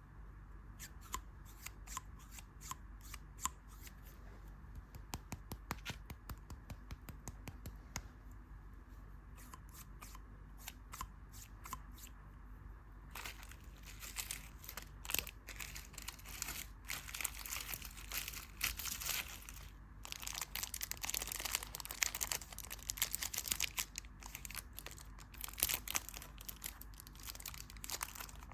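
Candy wrapper being handled, crinkling and tearing: scattered small crackles at first, then dense, continuous crinkling from about halfway through.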